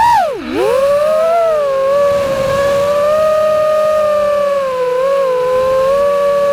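FPV freestyle quadcopter's brushless motors whining, with a quick throttle chop about half a second in that drops the pitch sharply before it climbs back; after that the pitch holds fairly steady, rising and falling slightly with small throttle changes.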